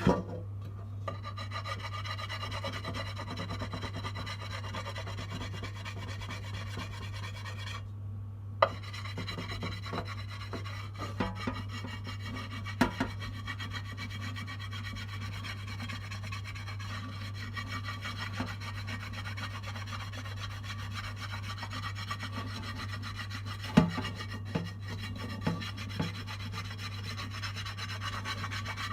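A dishwasher tablet being scrubbed hard against a stained pan: a steady rasping rub, broken off briefly about eight seconds in, with a few sharp knocks along the way. A low steady hum runs underneath.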